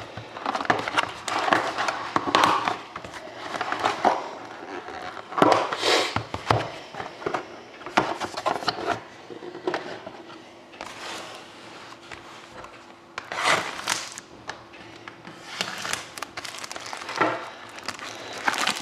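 Plastic-wrapped trading card packs and their cardboard box being handled: irregular rustling and crinkling of the wrappers with light scrapes and taps, some louder bursts around six seconds in and again about halfway through.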